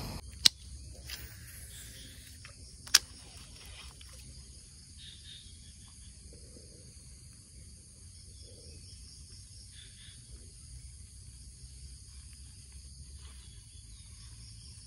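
Steady, high-pitched, pulsing chorus of insects such as crickets. Two sharp clicks stand out above it, one about half a second in and another about three seconds in.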